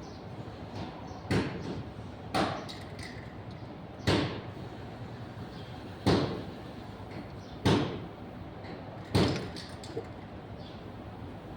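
Six sharp knocks, spaced one to two seconds apart, each dying away quickly over a steady low background.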